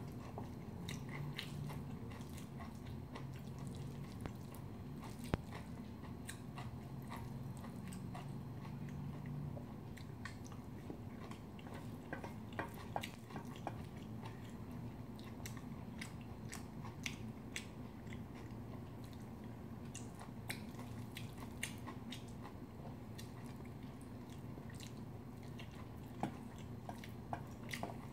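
Close-up chewing of mouthfuls of bibimbap rice and vegetables, with scattered short clicks of a spoon scraping and tapping a stainless steel bowl, over a steady low hum.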